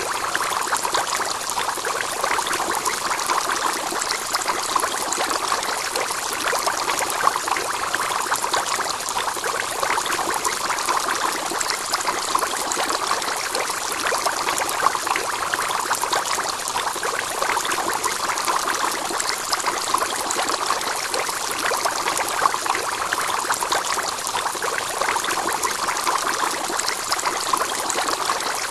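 Fish-tank water trickling and splashing steadily, as water from the tank's filter or aeration runs back into it, with a fine crackle.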